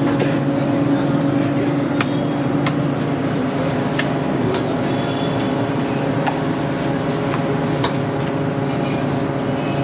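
Busy griddle-kitchen din: a steady mechanical hum with a constant sizzle from parathas frying on a large flat tawa, broken now and then by sharp metallic clinks of tongs and a spatula against the griddle.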